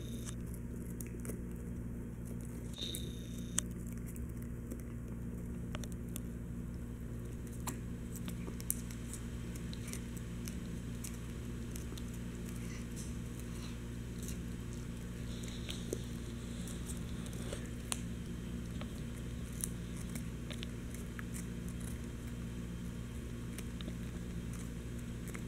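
A merle Chihuahua gnawing a knotted rawhide bone: scattered sharp clicks and crunches of teeth on the hide, a few louder than the rest, over a steady low hum.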